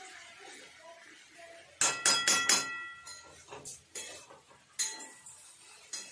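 Metal spatula stirring cooked greens in a steel pan, striking the pan: a quick run of about four ringing clanks about two seconds in, then a few lighter knocks.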